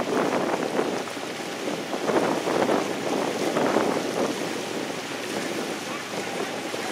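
Water noise from a rowing eight close by: oar blades splashing and the hull running through choppy water, with wind buffeting the microphone. It surges unevenly, louder in the first few seconds and easing after about four seconds.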